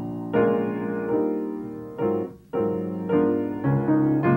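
Solo piano playing a run of chords, each struck sharply and left to ring, with a short break about two seconds in.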